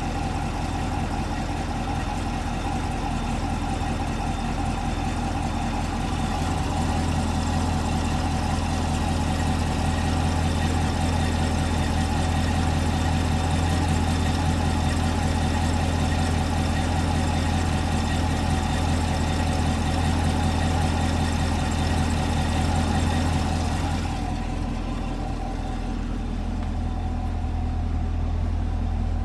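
2018 Chevrolet Camaro SS's 6.2-litre V8 idling after a cold start, through its dual-mode exhaust. The steady running has a higher, harsher layer that falls away about 24 seconds in, leaving a smoother, lower idle.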